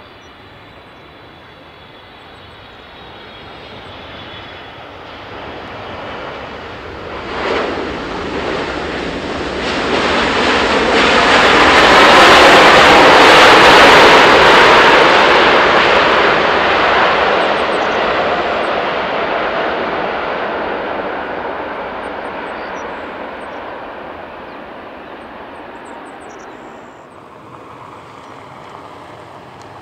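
Jet engines of a Boeing 777-300ER on its landing rollout, spooled up in reverse thrust: a broad rushing jet noise that swells to a loud peak about twelve to fifteen seconds in and then slowly fades. A brief louder burst comes about seven seconds in, and near the end the noise drops away to a quieter distant jet.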